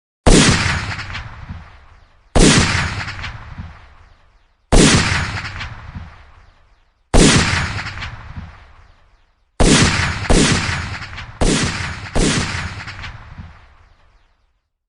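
Eight gunshot sound effects, each a sharp crack that rings away over about two seconds. The first four come about two and a half seconds apart; the last four follow in quicker succession.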